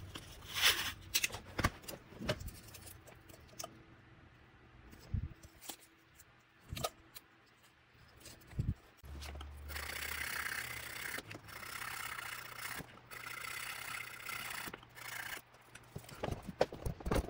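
Scattered clicks and knocks of tools and parts being handled on a workbench. From about halfway comes a longer stretch of scraping and rubbing in several strokes, as a saxophone neck is roughed with sandpaper to prepare it for a new neck cork.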